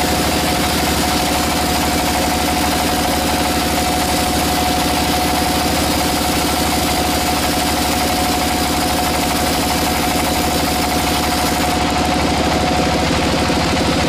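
Sawmill machinery running steadily: an even engine-like drone with a fast pulse and a constant high whine.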